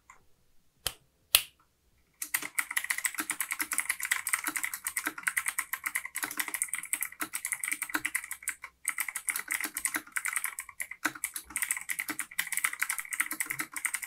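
Fast typing on an Imperion Trooper 7 mechanical keyboard with clicky Otemu blue switches: a rapid, dense clatter of sharp key clicks. Two single key presses come first, and the steady typing starts about two seconds in.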